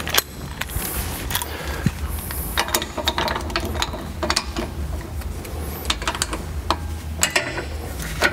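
Hand ratchet clicking in quick, irregular runs as it is worked back and forth, tightening the adjuster clamp bolts on the steering linkage. Now and then the tool clinks against the metal.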